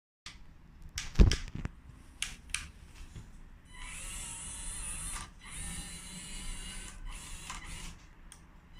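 A few clicks and one sharp knock, then the electric hydraulic pump and motors of a 1/14-scale RC tracked skid-steer loader running with a steady whine. The whine stops briefly twice, once a little past the middle and once near the end.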